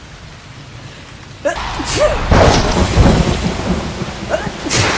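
A woman sneezing in a fit: short catching breaths about a second and a half in, then several loud, noisy sneezes, the last a sharp one near the end.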